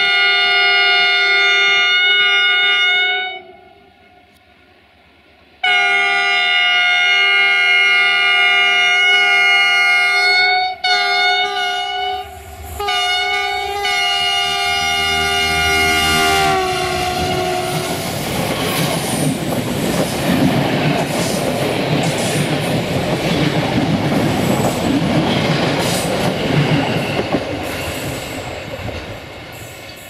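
GM diesel locomotive 64-1019-0's multi-tone horn sounding: one blast of about three seconds, a short pause, then a long blast with a few brief breaks, held until the locomotive is almost level and sagging in pitch as it goes by. Then the locomotive and its passenger coaches rumble past close by, wheels clattering over the rail joints, the noise fading near the end.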